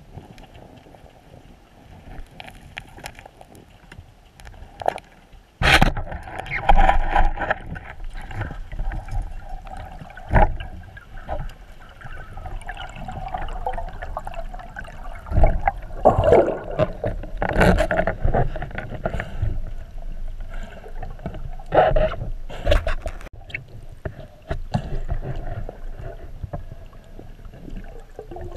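Underwater sound through a waterproof camera housing: a wash of water noise with irregular sharp knocks and thuds, about seven loud ones, as a spearfisher's hands and speargun handle a caught octopus.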